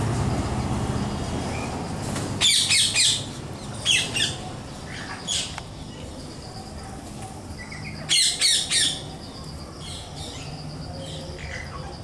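Rose-ringed parakeets giving harsh, screeching squawks in short groups of one to three: a cluster about two and a half seconds in, more near four and five seconds, another cluster around eight seconds, then fainter calls.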